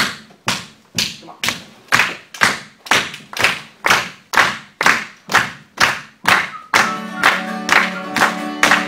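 A steady beat of sharp claps, about two a second. About seven seconds in, an acoustic guitar comes in strumming chords over the beat.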